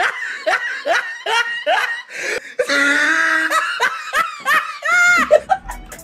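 A man laughing hard: a quick run of high-pitched "ha" sounds, breaking into a squealing laugh about five seconds in.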